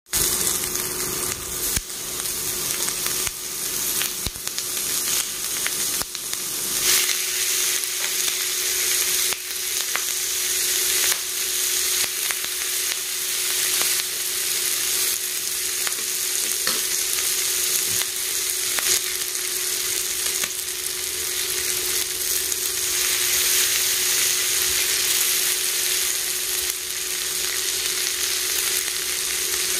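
Chicken sisig sizzling on a hot cast-iron sizzling plate, a steady hiss, while a spoon stirs it and clicks and scrapes against the plate, most often in the first several seconds.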